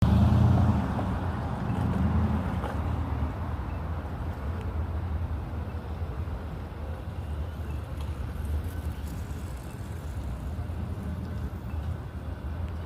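Steady low rumbling background noise, louder for the first two seconds or so and then level.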